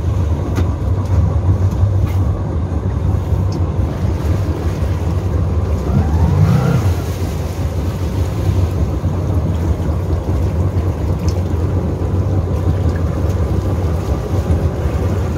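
Motorboat engine running with a steady low hum, heard from on board. A brief rising tone comes in about six seconds in.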